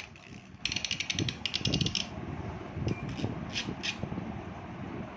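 A metal Beyblade spinning in a plastic lid: a steady low whir, with a rapid rattle of ticks for about a second starting just under a second in as the top knocks along the plastic rim, then a few single sharp clicks.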